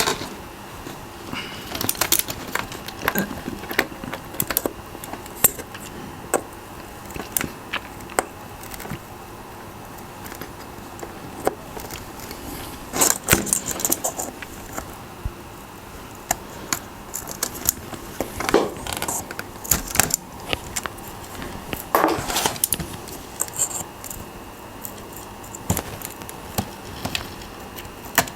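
Irregular small clicks and metallic clinks of hand work on a mechanical keyboard being taken apart to free its switches, some coming in short clusters, over a faint steady high whine.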